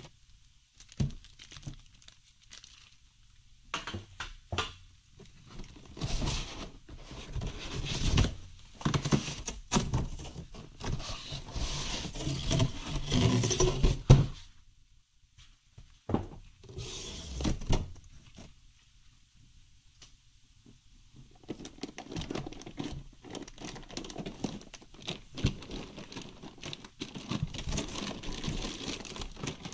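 Clear plastic bag crinkling and rustling, with foam packing inserts scraping, as a rack server is handled in its box. The sound comes in irregular bursts, is busiest through the middle, drops away for a few quiet seconds, then turns into steady rustling near the end.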